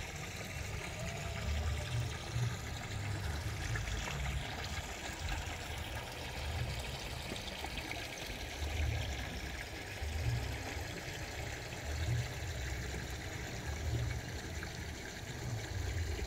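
Water trickling steadily, under a low irregular rumble.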